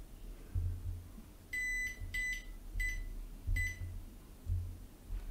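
Multimeter continuity tester beeping four times in quick succession as its probes touch points on a graphics-card circuit board, with low bumps from the probes being handled.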